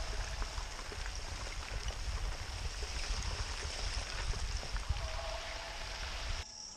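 Shallow lake water lapping and trickling over rocks right at the microphone, a steady wash with a low rumble underneath; it drops away suddenly near the end.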